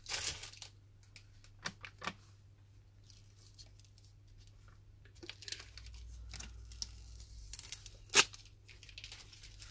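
Hands-on handling noises from plastic film or packaging: crinkling and a peeling, tearing sound, with scattered small clicks and one sharp click about eight seconds in.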